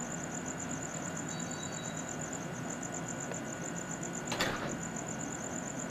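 Crickets chirping in a fast, even, high-pitched pulse over steady hiss, with one brief knock about four and a half seconds in.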